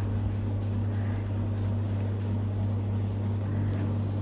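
Spinach-and-lentil vadas deep-frying in hot oil, a steady sizzle with faint crackles, over a louder constant low hum.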